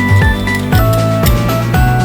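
Background music with a steady beat: bouncy synthesized melody over a bass line and regular drum hits.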